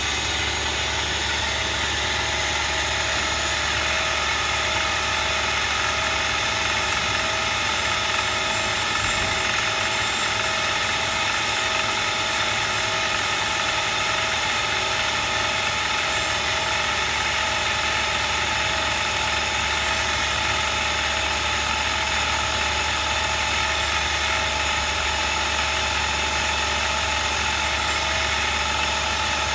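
A machine tool running steadily: an even hum with several constant tones and a level that does not change.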